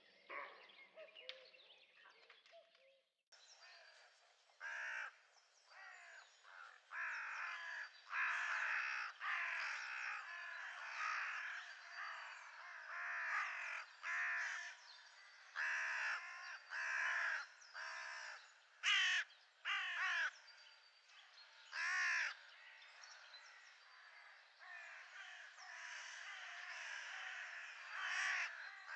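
A flock of birds calling over one another in a dense, continuous chorus of overlapping calls that starts abruptly about three seconds in.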